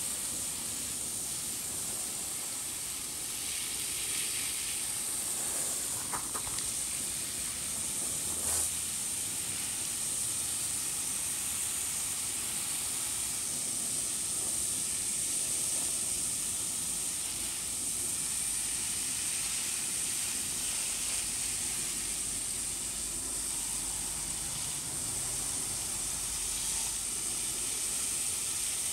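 Steady hiss of a garden hose spraying water through the fins of an outdoor AC condenser coil, rinsing out clogged hair and grime, with a light knock about eight seconds in.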